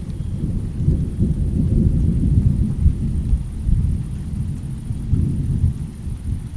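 Low rolling thunder rumble in a rainstorm, swelling through the middle and again near the end before easing.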